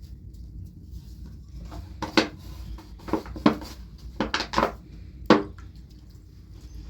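A run of about six sharp knocks and clatters, irregularly spaced over some three seconds, over a low steady background rumble.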